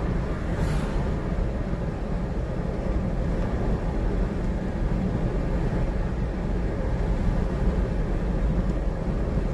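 Steady road and engine noise of a car driving at a constant cruising speed, heard from inside the cabin, with a deep rumble and no changes.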